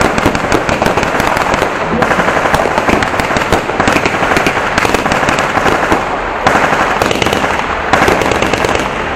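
Dense gunfire from blank-firing guns in a mock WWII battle: many rapid shots a second, overlapping into a continuous crackle, at times bursting like machine-gun fire.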